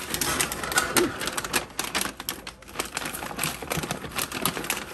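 Stiff paper crinkling and crackling in quick, irregular clicks as a smoked beef chuck roast is folded up in it by gloved hands.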